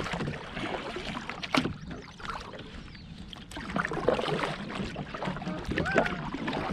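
Double-bladed kayak paddle stroking through lake water, splashing and dripping on alternating sides, with a louder splash about every two seconds.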